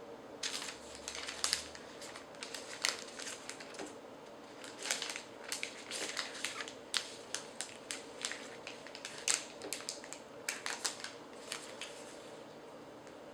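Hands handling unboxing packaging and items: irregular crinkles and clicks, many in quick clusters, stopping about a second before the end.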